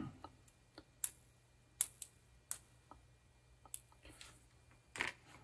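A few light, sharp clicks, about a second apart, as a thin flat metal tool taps and catches on the metal center tab and ring of an opened potentiometer.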